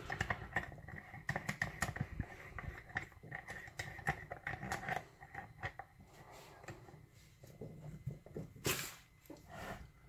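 Handling noise as a Schlage-style lock cylinder is fitted and clamped into a small bench vise: scattered light clicks, taps and scrapes, busiest in the first few seconds, with a sharper knock near the end.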